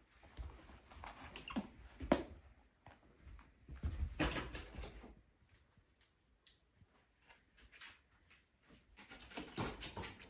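Capuchin monkeys playing with toys and a cushion: scattered rustling, soft knocks and clicks, with a sharper click about two seconds in.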